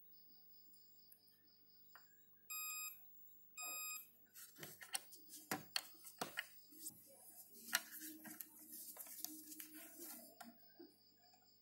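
A multimeter in continuity mode gives two short beeps as its probe is held on the HD7970's power-phase MOSFET area, the tone used to flag a short on the card's power rail. After that come several seconds of sharp clicks and scraping as the metal probe tip is dragged and tapped across the board's components.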